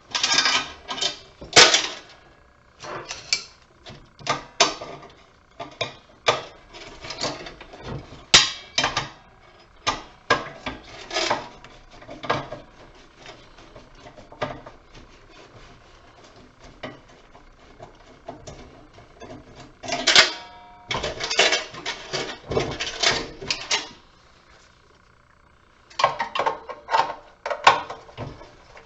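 Metal parts of a light fixture clattering, clicking and scraping as it is pulled apart by hand for scrap, in irregular bursts with a pause of a couple of seconds near the end.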